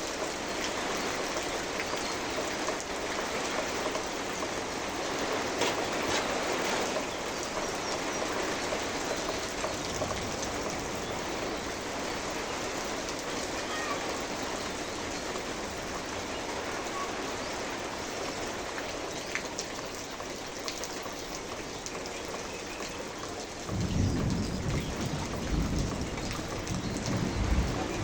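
Steady rain falling and pattering on surfaces, with a low rumble of thunder coming in near the end.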